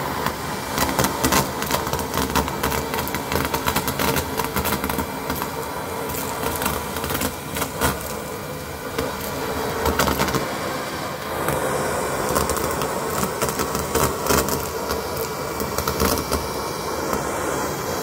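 Henry cordless vacuum cleaner running with its crevice tool, sucking up foil confetti and small jingle bells from carpet. Its steady suction noise is peppered with many clicks and rattles as the pieces are pulled up the tool.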